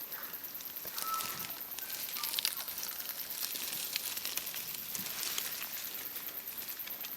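Rustling and scuffling with scattered clicks, with two brief high whistle-like notes about a second and two seconds in, over a steady hiss.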